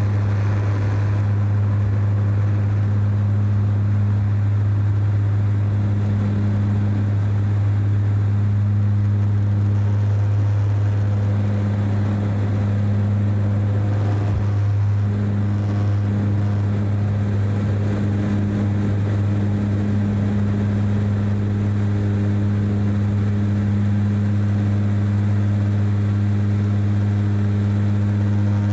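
Cabin sound of a DHC8-Q400 turboprop at takeoff power, through the takeoff roll and into the climb: a steady low propeller drone, with a second, higher tone that swells and fades every few seconds.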